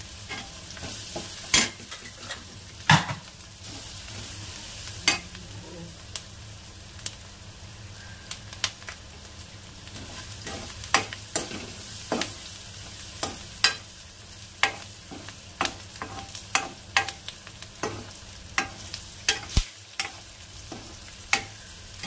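Onions, garlic, chillies and curry leaves sizzling in hot oil in a metal kadai, being fried toward golden brown, while a metal spoon stirs them, knocking and scraping against the pan in frequent sharp clicks that come faster in the second half.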